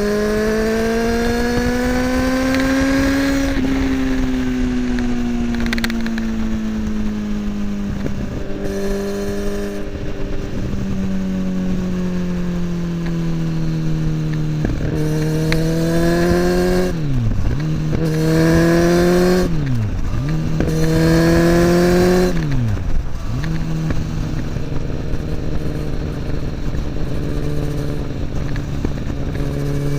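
Kawasaki ZX-10R inline-four through an Akrapovic slip-on exhaust, heard while riding: the engine pitch swells, eases off, then climbs quickly three times in the second half, each climb cut by a sudden drop as it shifts up a gear, before settling into a steady cruise.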